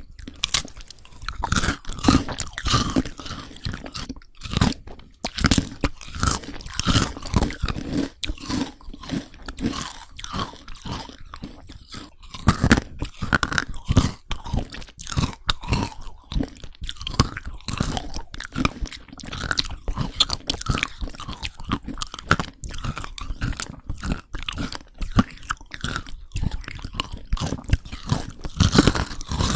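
Crunchy food being bitten and chewed for eating ASMR, a dense run of sharp crunches throughout.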